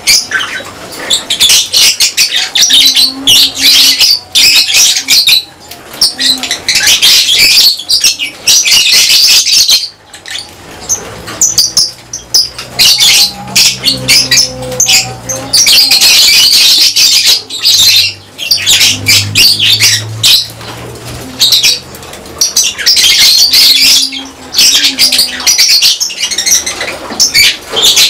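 A colony of lovebirds chattering and screeching in loud, dense bursts with short pauses between them. A faint low hum sits under the middle of the stretch.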